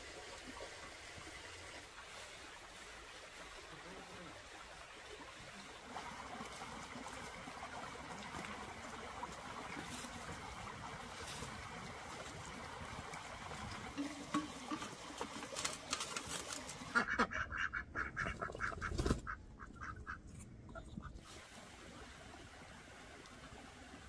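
Farmyard poultry calling: a quiet stretch with a few faint clicks, then a few seconds of loud, quick, repeated calls about two-thirds of the way in.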